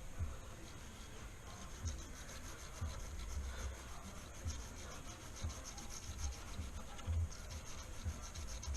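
Brass wire brush scrubbing grime off a gunked-up surface in quick repeated back-and-forth strokes, with occasional dull knocks.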